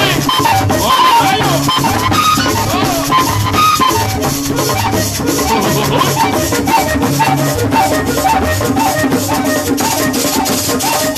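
Live band music played through a PA. A shaken rattle keeps a fast, even beat over drums and a pulsing bass, with a melody line on top.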